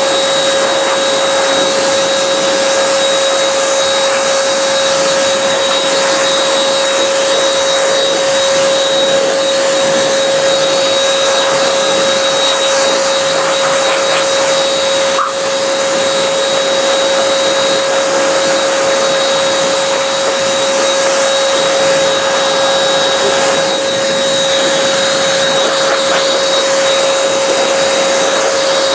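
Pet quick dryer's blower running steadily: a loud, even rush of air with a constant motor whine.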